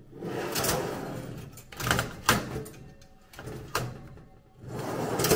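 Oven door and metal baking tray being handled: a run of sharp clanks and knocks, loudest about two seconds in and again near the end, with a sliding rasp before each group as the tray goes onto the oven rack.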